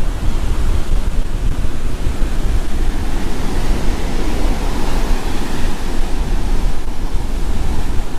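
Tropical-storm wind buffeting the microphone with a heavy low rumble, over rough surf washing onto the beach; the surf swells louder about halfway through.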